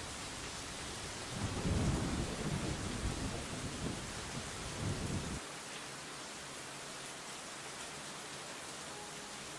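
Steady rain hissing, with a low rumble of thunder that starts about a second in and stops suddenly about five seconds in.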